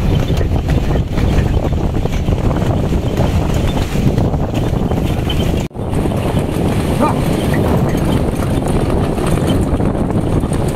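Wind buffeting the microphone: a loud, steady low rush with no clear rhythm. It drops out for an instant a little past halfway.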